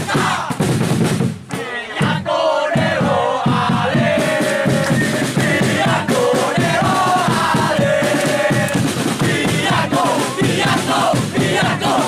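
Group of football supporters singing a terrace chant together, many male voices holding long sung notes over a rhythmic backing.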